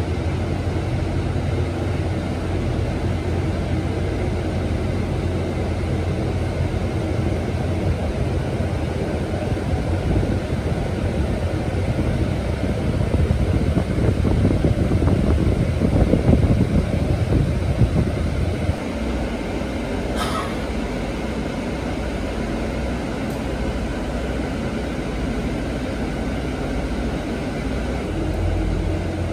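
Cabin noise inside a moving electric bus: a steady low rumble of tyres and road with body rattle, swelling for a few seconds in the middle and then dropping abruptly. A brief high-pitched sound about two-thirds through.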